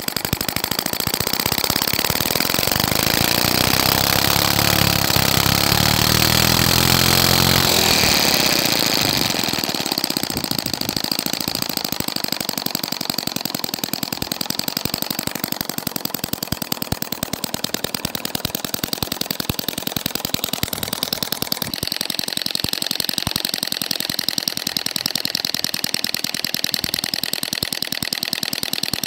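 Small model hit-and-miss engine running with a rapid, steady clatter of ticks. From about two seconds in until about eight seconds a louder low hum, shifting in pitch in steps, sits under the ticking.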